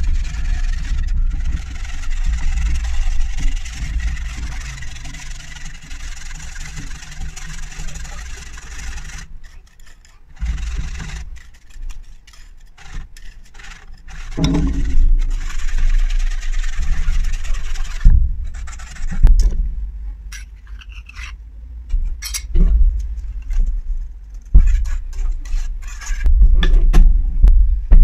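A wire whisk stirring and scraping a milk-and-egg mixture in a nonstick frying pan, over a steady low rumble. In the second half the sound turns choppy, with irregular knocks and clatters.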